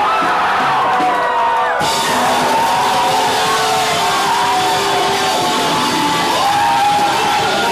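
Live rock band playing loudly, a yelled vocal over guitar and drums, with a crash of cymbal hiss coming in about two seconds in.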